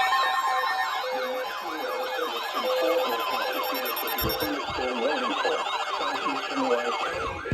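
Several sirens sounding at once, their pitch sweeping rapidly up and down over and over. A pulsing beep tone runs underneath through the first few seconds.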